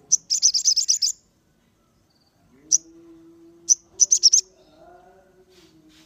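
Sogon songbird chirping: a quick run of sharp, high chirps just after the start, single chirps near the middle, and another short run of rapid chirps a little past four seconds in. A faint, low, steady note sits underneath from about halfway through.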